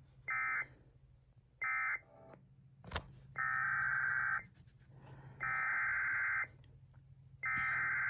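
Emergency Alert System SAME data bursts, the harsh two-tone digital screech of an alert code: two short end-of-message bursts in the first two seconds, then after a click about three seconds in, three longer bursts of about a second each, the header of the next warning. A low steady hum runs underneath.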